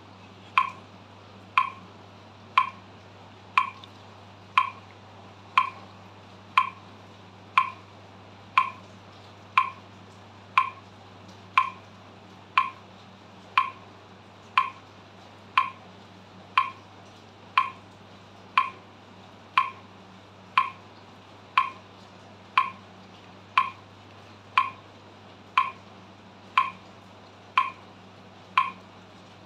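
Metronome clicking steadily at 60 beats per minute, one sharp click each second.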